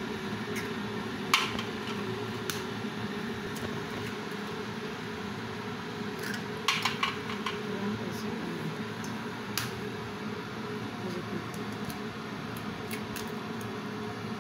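Hen's eggs being cracked on the rim of a white bowl, with shells tapping and clinking against the bowl: a sharp crack about a second in, another soon after, a quick cluster of taps around the middle and one more a little later. A steady low hum runs underneath.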